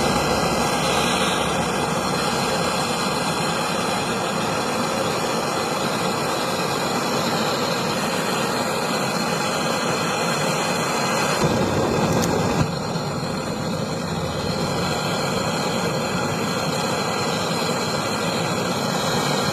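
Gas brazing torch burning with a steady hiss while a refrigerator's gas line and filter are brazed, with a couple of small clicks about twelve seconds in.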